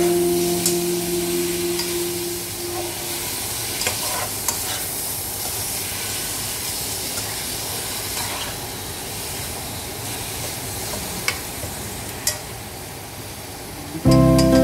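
Marinated beef and lemongrass sizzling as they are stir-fried in a metal pot to sear and firm up the meat, with scattered clicks of chopsticks and a spoon against the pot.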